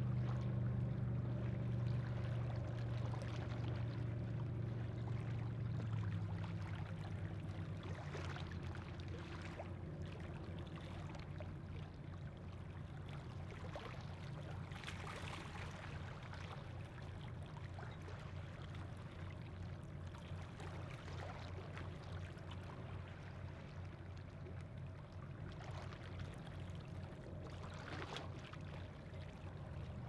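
Passing boat's engine running with a steady low drone that fades over the first several seconds, over the constant wash of fjord water.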